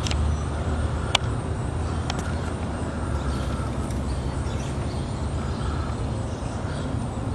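Steady low rumble of distant traffic, with a sharp click a little over a second in and two fainter clicks about two seconds in.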